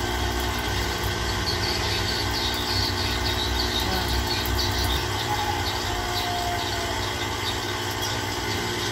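Electric knapsack sprayer's battery-powered pump motor running with a steady hum, with water hissing from the wand nozzle. The spray is weak, and judging from the sound the owner puts the fault down to the pump motor.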